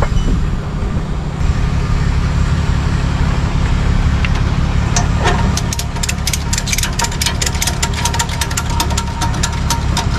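Tow truck engine idling steadily. Over the second half comes a quick run of sharp clicks and rattles.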